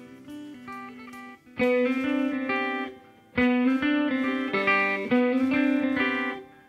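Background music of picked guitar chords, soft at first, then louder from about a second and a half in, breaking off briefly around three seconds in and again near the end.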